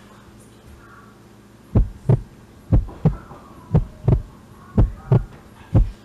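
Loud knocking in pairs, knock-knock about once a second, starting nearly two seconds in: the prank's knocking noise, meant to sound like someone knocking in the basement.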